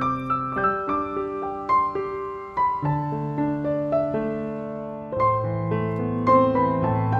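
Background piano music: a melody of single struck notes over lower held bass notes.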